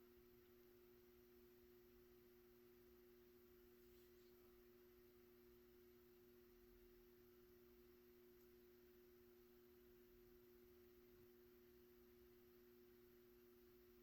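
Near silence with a faint, steady two-note hum: a 1985 Sears 42-inch ceiling fan's 153 mm spinner motor running on low speed. It is a quiet-running fan, with no bearing noise.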